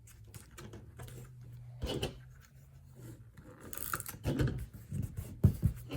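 Cardstock invitation pieces handled: paper rustling and sliding, with a few light taps and ticks.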